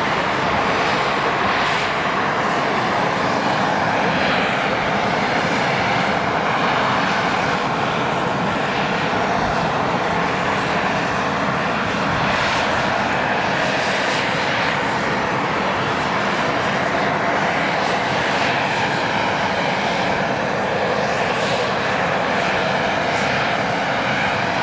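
Scheibe SF-25 C Falke motor glider's piston engine running at low power, a steady, unbroken drone as the aircraft rolls out and taxis on a grass runway.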